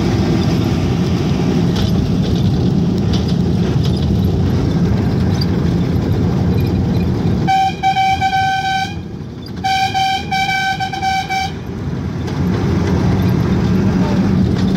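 Steady low rumble of a moving road vehicle, with two vehicle horn blasts about halfway through, each lasting roughly a second and a half.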